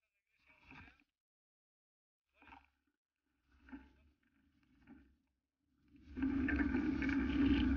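A few faint, brief handling sounds, then about six seconds in a steady, loud rush of wind and road noise on the camera of a moving touring bicycle.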